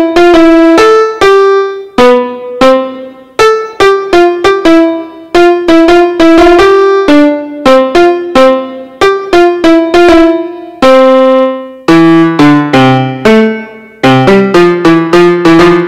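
Yamaha PSR-F51 portable keyboard playing a melody on one of its piano voices, picked up straight from its line output with no room sound. Each struck note dies away; for most of the time a single melody line plays, with lower notes joining in about twelve seconds in.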